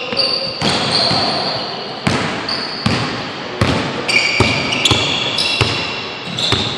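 Basketball bouncing on a hardwood gym floor in irregular thuds about every half second, with sneakers squeaking in short, high squeals during a pickup game in a large indoor gym.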